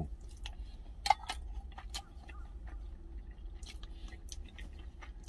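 A man chewing and eating lunch from a stainless steel container with a spoon, with a few sharp clicks, the loudest about a second in, over a low steady hum.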